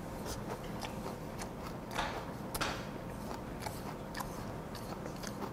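Close-up chewing and wet mouth clicks of a person eating raw silchi with a spicy vegetable salad, with two louder smacks about two seconds and two and a half seconds in.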